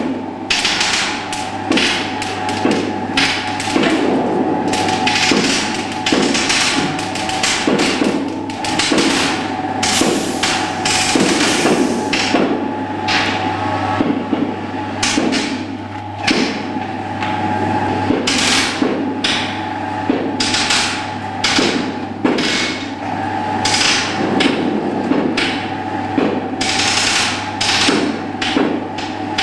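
Hammer blows struck over and over at an uneven rhythm during construction work, over a steady low hum.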